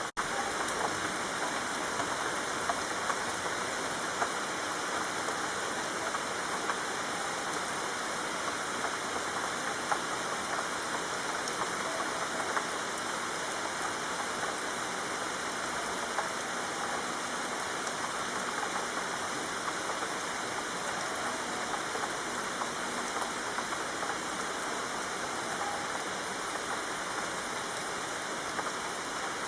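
Steady rain falling, an even hiss with scattered louder drop ticks, cutting out for an instant at the very start.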